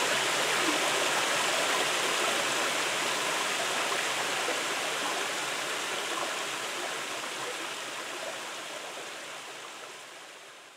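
A shallow stream cascading in small falls over flat bedrock: a steady rush of water that slowly fades away toward the end.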